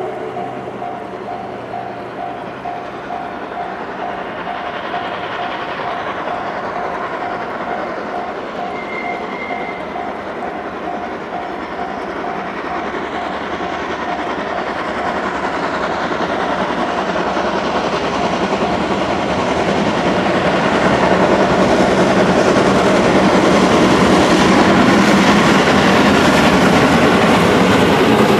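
D51 steam locomotive and its train coming up a steep grade, growing steadily louder from about halfway through and running loud as it passes, with wheels clattering over the rails. For the first dozen seconds a level-crossing warning bell dings about twice a second.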